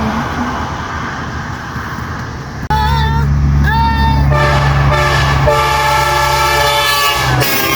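Train horn blowing one long blast: a loud chord of several held notes that starts suddenly about three seconds in and cuts off near the end, over a low rumble.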